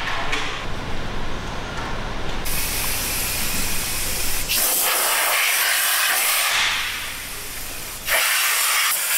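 Aerosol cleaner can spraying onto a car's front subframe and steering rack, a hissing jet that starts about two and a half seconds in, eases off briefly, and comes back loud near the end. A low rumble underneath stops about halfway.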